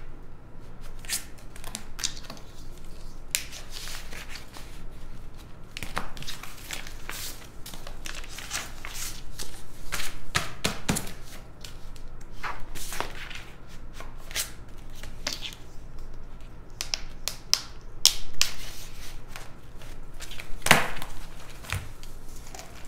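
Sheets of printer paper rustling and flapping as a stack of printed pages is lifted, leafed through and laid down on a desk, with short taps and knocks scattered throughout, the loudest near the end.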